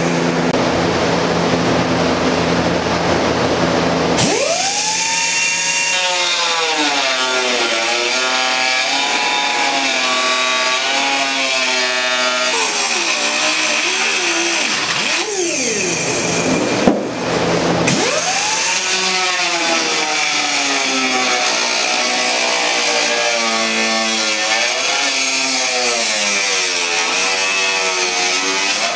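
Air-powered cut-off wheel cutting through a fiberglass seat base. Its whine jumps up about four seconds in, then sags and wavers as the wheel is pushed through the cut. It winds down about halfway and climbs back up as cutting resumes.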